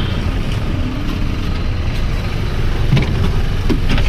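Tata college bus engine running steadily at idle, heard from the doorway and inside the bus. A few short knocks near the end.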